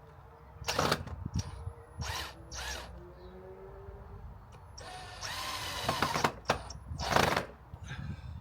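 Power drill running in a string of short bursts, most a fraction of a second long and one lasting about a second, with a few clicks in between, as work goes on on a wooden bed frame.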